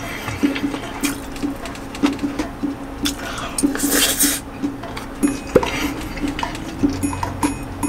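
Metal spoon scraping and clinking against a frying pan while fried rice is eaten from it, with mouthfuls of chewing. A few sharp clicks stand out among the scraping.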